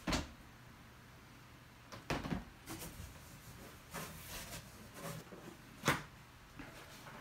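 Scattered knocks and rustles of items and a plastic basket being handled at a cardboard shipping box, as it is unpacked. The loudest knocks come at the very start and about six seconds in.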